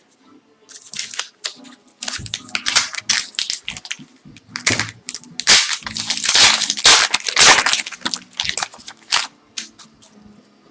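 Foil trading-card pack wrapper crinkling and crackling as it is torn open and handled by hand, loudest in the middle of the stretch.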